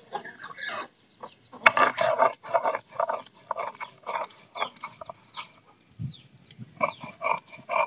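Chickens clucking over and over. Mixed in is the scrape and knock of a stone muller grinding ginger and garlic on a flat grinding stone (shil-nora).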